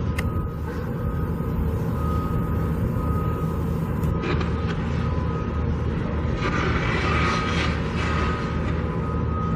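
Heavy construction equipment engine running steadily, with wind on the microphone.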